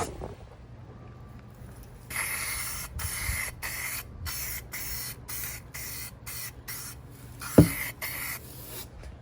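Aerosol spray paint can spraying in a rapid string of short hissing bursts, starting about two seconds in. A single sharp knock sounds near the end.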